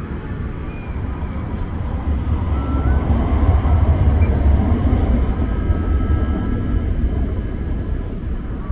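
A large vehicle passing close by on a city street: a low rumble that swells toward the middle and eases off near the end.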